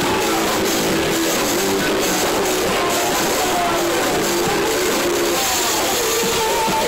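Loud live band music from a club stage, dense and unbroken, with held melodic notes over the beat, recorded on a phone from within the audience.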